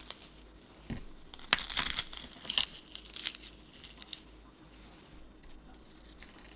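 Knitted nylon mesh scrubber pad crinkling and rustling as fingers squeeze and handle it, with a cluster of crisp scratchy sounds and a few sharp clicks between about one and three seconds in.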